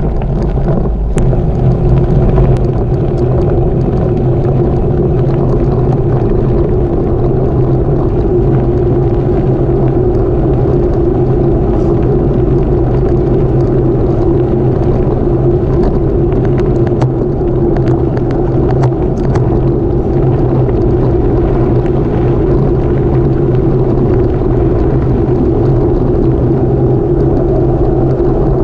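Gravel bike rolling fast on a gravel road, heard through a camera mounted on the bike: a steady rumble from the tyres and the rattling frame, with scattered sharp ticks of gravel.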